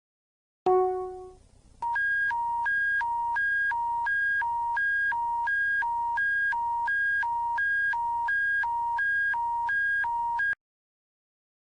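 Emergency alert attention signal: a single chime that rings out, then a steady two-tone alarm alternating high and low, about three switches a second, for around eight seconds before cutting off suddenly.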